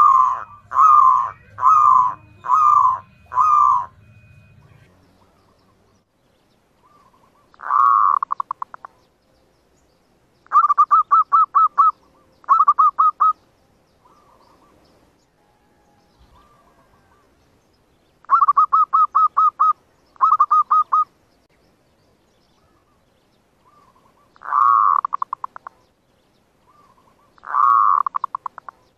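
Zebra dove cooing, used as a lure call to draw wild zebra doves to the trap: five short notes in the first few seconds, then a series of rapid trilled cooing phrases repeated every few seconds with pauses between.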